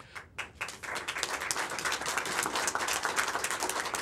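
Crowd applauding: a few scattered claps at first, building within about a second into steady applause.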